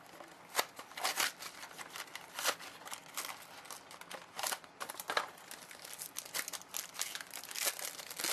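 Packaging and trading cards being handled and opened: a busy run of crinkling, rustling and small sharp crackles and clicks.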